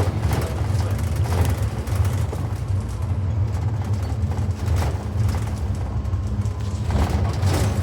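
2019 Blue Bird Vision propane school bus running, heard inside the cabin as a steady low drone of engine and road noise.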